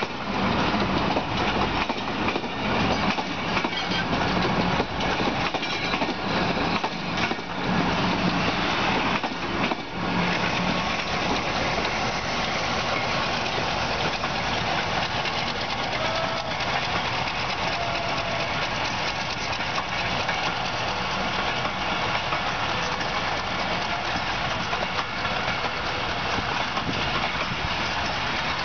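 Passenger trains passing at a junction. Coaches roll by close at hand with repeated wheel clicks for about the first ten seconds, then a diesel-hauled passenger train runs past on a farther track as a steady running noise.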